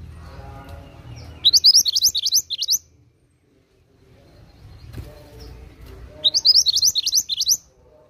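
Minivet (burung mantenan) singing: two bursts of quick, rising high notes, each about a second and a half long and a few seconds apart.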